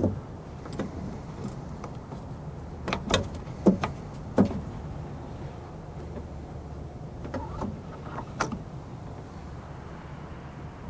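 Plastic clicks and taps as an LED headlight bulb is handled and fitted into the socket of a headlight assembly. About half a dozen sharp clicks are spread through it, the loudest a few close together about three to four and a half seconds in, over a steady low hum.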